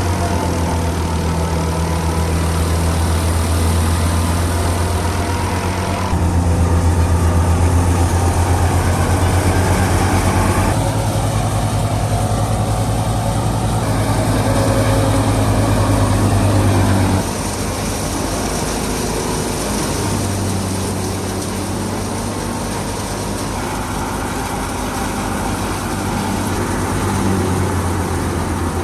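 Alghazi tractor's diesel engine running steadily under load, driving a wheat thresher. The drone is mixed with the machine's noisy rush, and the sound changes abruptly in level and pitch several times.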